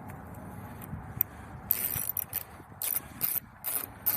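Socket ratchet wrench clicking in a quick run of short strokes, starting about halfway through, as a door handle mounting bolt is worked in.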